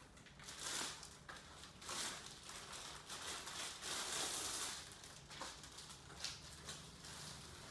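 Packaging crinkling and rustling in irregular swells, with a few light knocks, as a cricket bat is handled and unwrapped.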